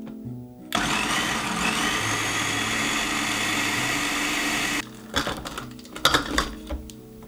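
Electric food processor running with its blade chopping onion, a steady whir for about four seconds that stops abruptly. A few clicks and knocks follow.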